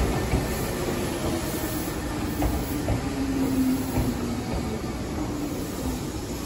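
Meitetsu 1200-series electric train running along the platform as it pulls into the station: a steady rumble of wheels on rails with a faint motor whine, fading gradually as the train slows.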